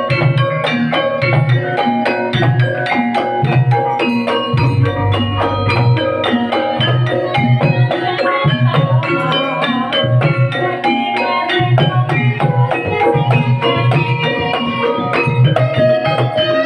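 Banyumasan gamelan accompaniment for ebeg: struck bronze metallophones ring out fast runs of short notes over kendang drumming. A low held note sounds about five seconds in, and the drum drops out for a few seconds past the middle.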